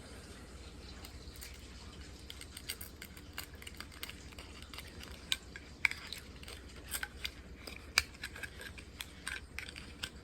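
Irregular small clicks and scrapes of a 3D-printed plastic switch housing and its wires being handled and slid onto a 12-volt accessory plug. The sharpest clicks come about six and eight seconds in, over a steady low hum.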